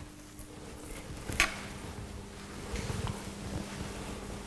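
Quiet kitchen room tone with a steady low hum, broken by one short click about a second and a half in and a few fainter taps later, small handling noises at a plastic cutting board.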